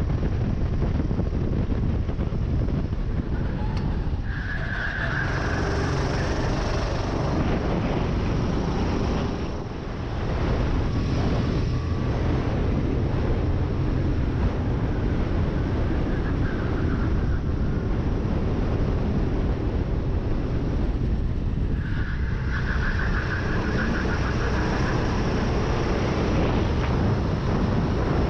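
Sodi rental kart's engine running hard at racing speed, heard from on the kart with wind on the microphone. The sound dips briefly about ten seconds in, and a high whine rises over it twice.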